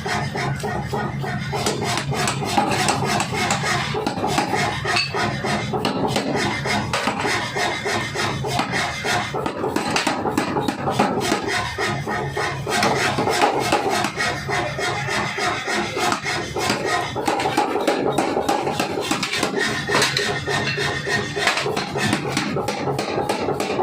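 Pneumatic forging hammer striking hot steel in a fast, continuous run of blows while forging a blade, over the steady hum of the machine.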